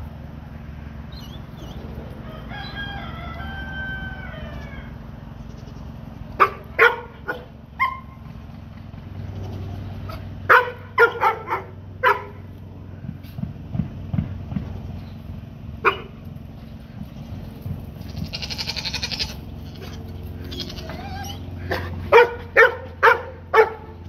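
A rooster crows once early on, then a dog barks in short runs of two to four sharp barks, the loudest sounds here.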